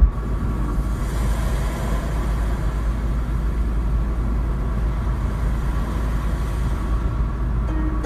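Steady road noise inside a moving car's cabin: a low rumble of engine and tyres on the road, opening with a brief click.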